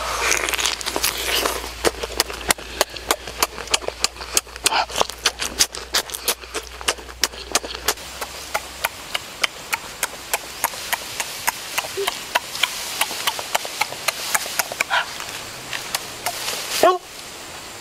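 Close-up sounds of shrimp being eaten by hand: rapid, irregular lip smacks and chewing clicks, several a second, with a few short mouth or throat sounds.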